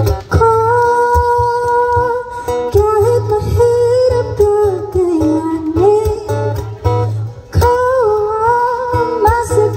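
A woman singing long held notes with slow bends in pitch, to her own strummed acoustic guitar, amplified through a PA system.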